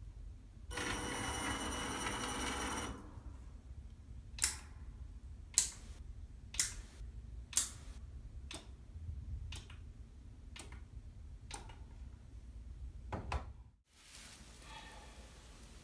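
Electric drive motor of a remote-controlled gantry robot running for about two seconds with a steady whine. It is followed by a series of about nine sharp clicks, roughly one a second, growing fainter.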